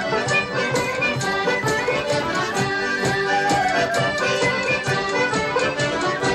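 Background music: an instrumental traditional folk tune with a steady beat, no speech.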